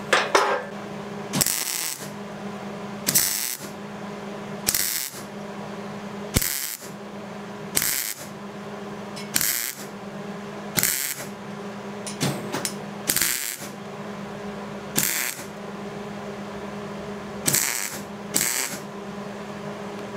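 MIG welder arc crackling in about a dozen short bursts, roughly one every second and a half, as a stitch weld of quick trigger pulls ('zap it, zap it') is laid around the joint between stainless and mild steel exhaust tubing. A steady low hum runs underneath.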